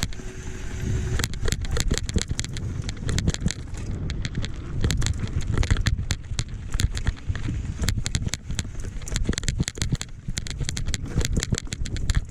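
Mountain bike rolling fast over rough dirt trail: a steady run of clicks and rattles from the bike and the ground, over a low rumble of wind on the microphone.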